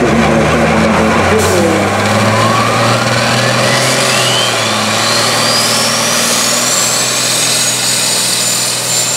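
Modified Sisu SR340 pulling truck's diesel engine running hard under load as it pulls the sled, with a high whistle that climbs steadily for several seconds and then holds high.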